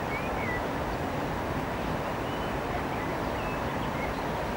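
A few short, faint bird chirps scattered over steady background noise.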